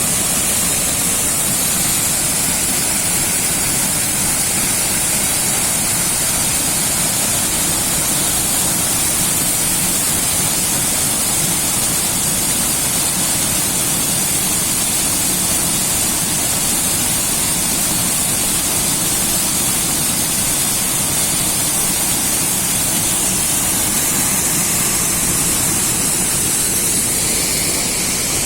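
Rushing water of a mountain stream and its cascades, a steady loud hiss that holds unchanged throughout.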